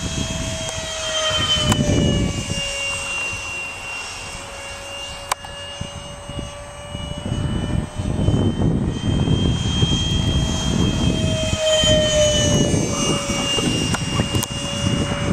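Radio-controlled model airplane flying, its motor a steady high whine that drifts a little up and down in pitch as it moves about the sky, with wind buffeting the microphone.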